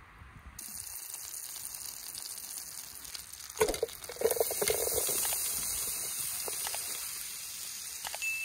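Butter sizzling in an aluminium camp-stove pan with a fine crackle. About three and a half seconds in, chopped tomatoes, onion and peppers are tipped in from a wooden bowl with a few soft knocks, and the frying grows louder.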